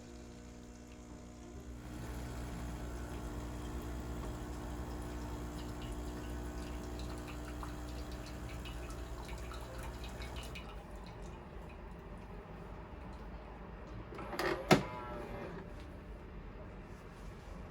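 Water running for about eight seconds, then one sharp knock near the end, over soft background music with held notes.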